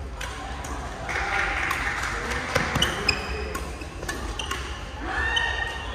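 Scattered knocks and thuds with several short, high squeaks, and a hiss of noise from about one to three seconds in.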